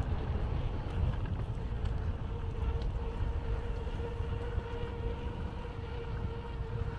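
Low rumble of wind buffeting the microphone and city traffic while riding a bicycle, with a steady faint hum.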